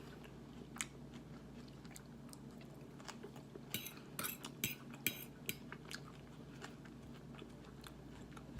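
Eating sounds: a fork clicking and scraping on a plate, with chewing. A quick run of sharper clinks comes about four to five seconds in.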